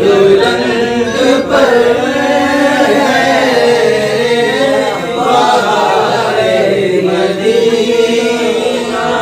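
A group of men chanting a devotional Islamic recitation together, with unaccompanied voices whose pitch rises and falls without a pause.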